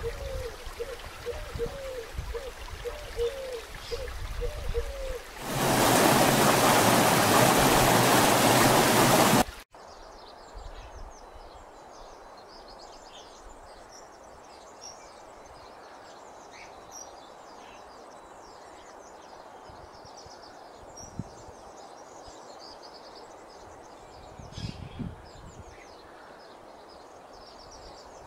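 Mountain stream rushing over rocks, with a short low call repeating about twice a second. About five seconds in, a much louder, even rush takes over for about four seconds and cuts off suddenly. It gives way to quiet forest ambience with many small birds chirping.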